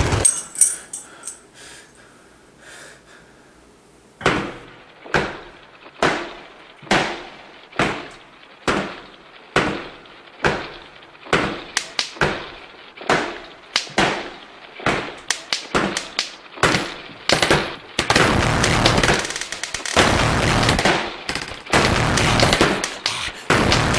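Gunfire: sharp shots with fading tails, about one a second at first, coming faster and faster until they merge into a dense, continuous barrage near the end.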